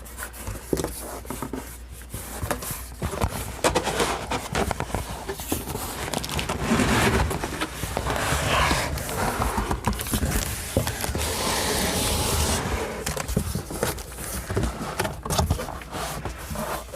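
Cardboard box and packing material scraping and rustling, with scattered knocks, as a heavy power amplifier is worked out of its double box.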